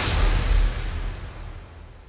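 Closing hit of a news channel's logo sting: one sharp impact with low boom at the start, then a hissy, reverberating tail that fades away steadily.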